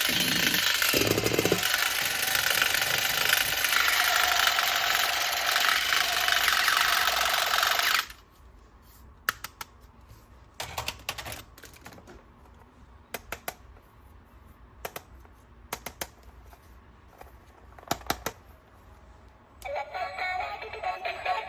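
A loud, harsh mechanical buzz that cuts off suddenly about eight seconds in, followed by scattered sharp clicks and taps over a quiet background; music with synthesized singing begins near the end.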